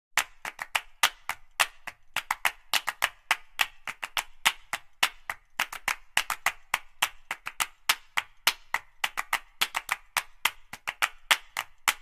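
Percussive background music built on a quick, uneven pattern of sharp hand claps, several a second.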